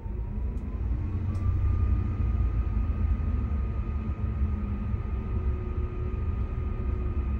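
MAN Lion's City bus's diesel engine running just after start, heard from the driver's seat: its speed rises over the first second or two and then holds, a steady low rumble with a steady whine above it.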